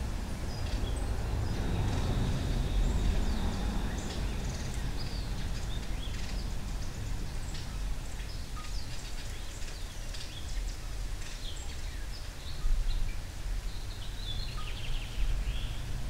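Outdoor ambience: a steady low rumble with many brief, high chirps and ticks of small birds scattered through it, and a few louder bumps near the end.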